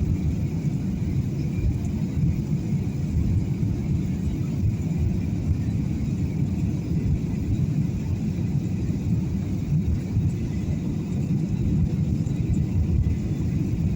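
Airliner cabin noise heard from inside the passenger cabin: a steady low rumble of engines and airflow, with a faint steady higher hum above it.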